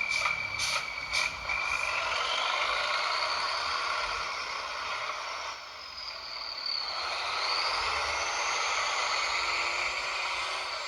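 Electric motor and gearbox of a WPL RC truck whining, the pitch rising as it speeds up, dropping briefly near the middle and rising again, with a few light ticks at the start.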